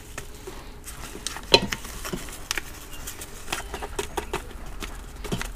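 Plastic spoon stirring macaroni in a stainless steel pressure-cooker pot: scattered light taps and scrapes, with one sharper tap about a second and a half in.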